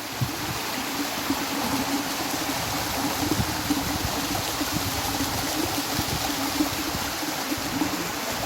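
Waterfall on a mountain river pouring steadily, a continuous wash of falling water that grows a little louder in the first second.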